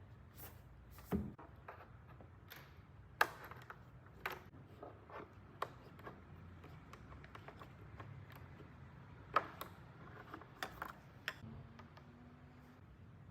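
Handling noise: about a dozen irregular light clicks, taps and knocks over a faint low hum. The sharpest knocks come about one, three and nine seconds in.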